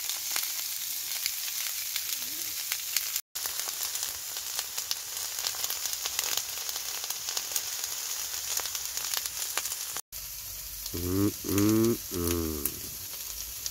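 Chopped onion and sweet red pepper sizzling as they fry in oil in a steel frying pan: a steady crackling hiss that breaks off twice for a moment. Near the end a person's voice hums briefly.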